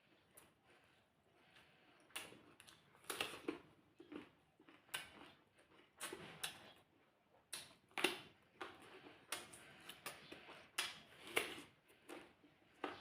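A person eating close to the microphone: irregular wet mouth clicks and smacks of chewing, often about a second apart, sometimes in quick pairs.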